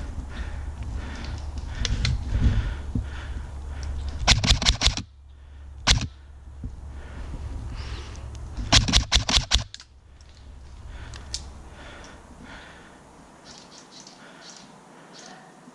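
Airsoft guns firing in rapid bursts of sharp cracks: one burst about four seconds in, a single shot near six seconds and a longer burst around nine seconds. Low rumble and rustling on the microphone, which fades after about ten seconds.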